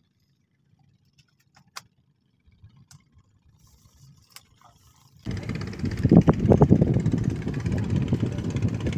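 A few faint clicks as fishing rods are handled. About five seconds in, this gives way abruptly to loud, gusty wind buffeting the microphone.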